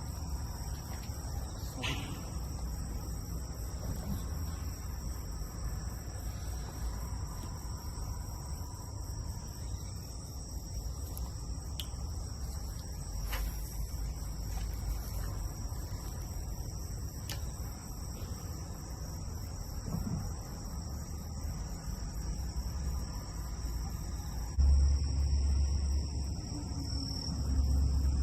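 Steady high-pitched insect chorus over a low rumble, with a few faint clicks; the low rumble gets louder near the end.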